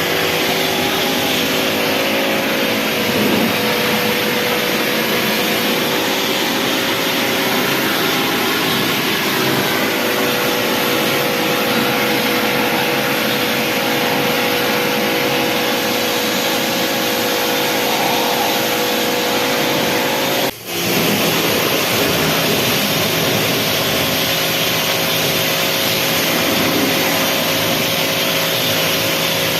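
Pressure washer running steadily: a motor-driven pump hum over a hiss of spraying water, with a brief cut-out about twenty seconds in.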